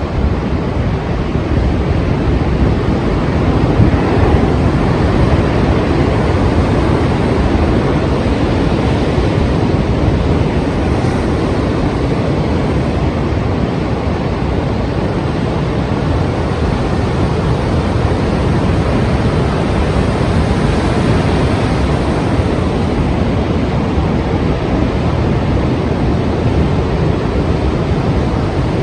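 Strong sea waves breaking and surf running, a continuous loud rush with slow swells in level, with wind buffeting the microphone.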